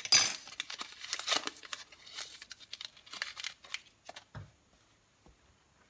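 Tea-bag sachet crinkling as it is handled and torn open, loudest in the first second and a half, with a soft thump about four seconds in.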